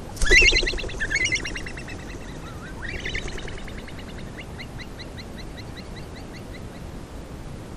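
Himalayan snowcock calling: a loud, harsh burst of notes in the first second or so, then a long series of short rising whistles, about three a second, fading away over several seconds. This is the species' typical call when the birds detect a predator and glide off down to the valley.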